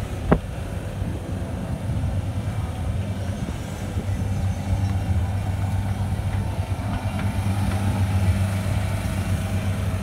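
Skid steer engine running steadily as the machine drives across dirt, with one short sharp knock about a third of a second in.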